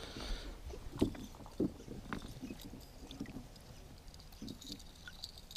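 A handful of short knocks and bumps, the loudest about a second in, as a northern pike is hand-lined to the side of a boat and grabbed and lifted over the gunwale.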